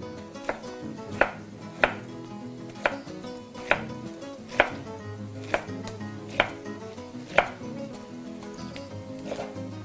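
Kitchen knife chopping artichokes on a wooden chopping board: about nine sharp cuts, roughly one a second and slightly irregular, over quiet background music.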